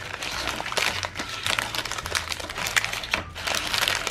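Irregular crinkling and small clicks of a plastic toy capsule being handled as a small plastic figure is taken out of it.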